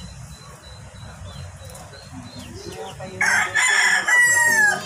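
A rooster crowing once, about three seconds in, loud and ending on a long falling note. Faint, repeated high chirps are heard before it.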